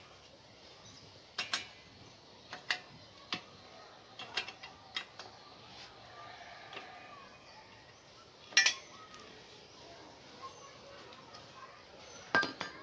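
Scattered metallic clicks and clinks of a hand tool working on a bicycle's pedal and crank, irregular and a second or so apart, with a louder clank past the middle and another near the end.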